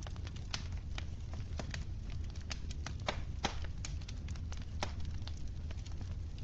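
Wood fire crackling in a fireplace: irregular sharp snaps and pops over a steady low rumble, with a few louder pops about halfway through.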